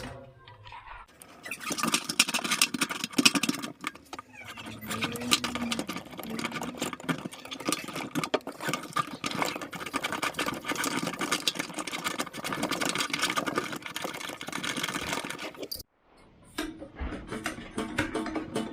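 Rapid metallic clicking and rattling of hand tools and faucet fittings while a new kitchen faucet is being mounted. It breaks off abruptly near the end, then starts again.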